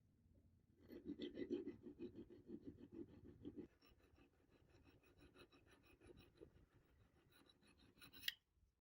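Faint, rapid scrubbing strokes on a surface during cleaning, louder for the first few seconds and then softer, ending with a single sharp click.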